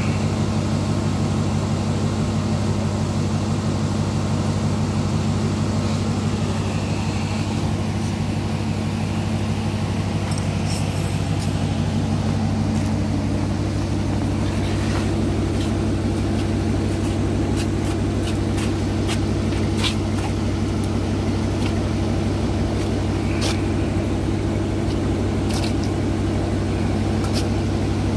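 Dodge Charger engine idling with a steady low drone; its tone shifts slightly about halfway through.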